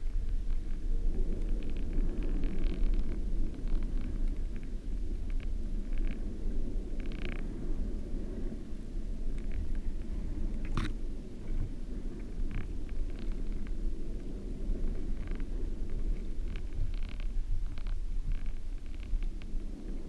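Steady low underwater rumble of water moving in the shallows, heard muffled through a GoPro's waterproof housing on a sandy seabed. Scattered faint clicks run through it, with one sharper click about eleven seconds in.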